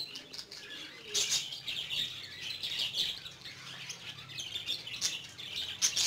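A flock of pet budgerigars chirping and chattering without a break, with louder bursts of calls about a second in, around three seconds and near the end.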